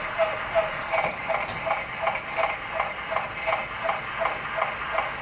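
Wax cylinder phonograph playing back through its horn: a thin, narrow-band hiss of surface noise with a regular pulsing crackle about four times a second.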